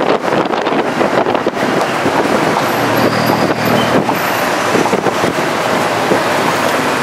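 Riding in an open-sided tuk tuk through heavy city traffic: the tuk tuk's engine running under steady traffic noise, with wind buffeting the microphone in the first second or so.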